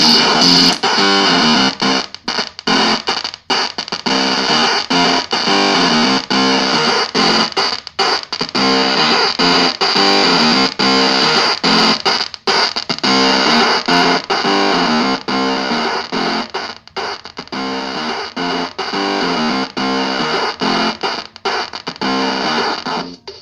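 Realistic Rap-Master toy keyboard played through a Time Box Crunch analog synth pedal and a small Squier amp, giving a crunchy, thick synth sound. Notes step up and down in quick runs, broken by several short gaps.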